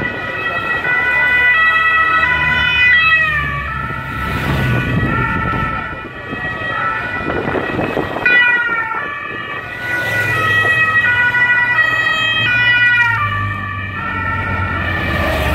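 Sirens of police escort motorcycles passing close by: a stepped series of tones that twice drops in pitch, over the rumble of the motorcycle engines.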